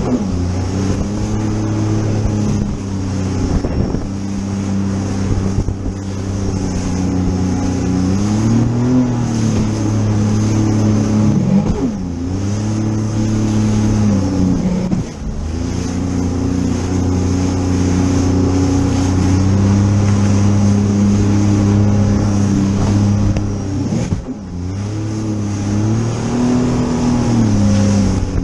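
Sea-Doo GTR-X 230 jet ski's engine running hard at speed, its pitch held steady and then dipping briefly and climbing back several times, over a constant hiss of wind and spray.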